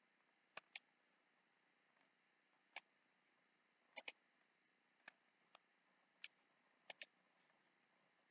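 Computer mouse buttons clicking, about ten sharp clicks spread irregularly, several in quick pairs like double-clicks, while supports are placed one by one in 3D-printing slicer software.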